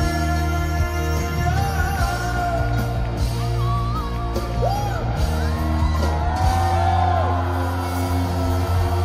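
Live rock band music echoing in a large concert hall, with steady bass and sustained chords, voices singing and whooping over it.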